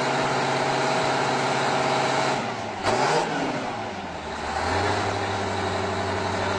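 Diesel engine of a giant articulated four-wheel-drive farm tractor running steadily. About three seconds in it is suddenly revved, blowing black smoke from its exhaust stacks, then it settles into a steady, lower note.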